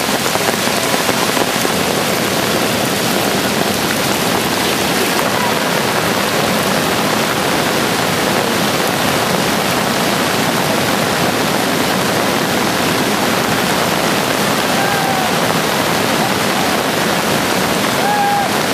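Steady rushing of a river in flood, fast muddy water churning and foaming.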